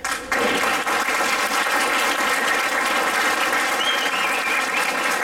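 Audience applauding, starting suddenly a moment in and continuing steadily.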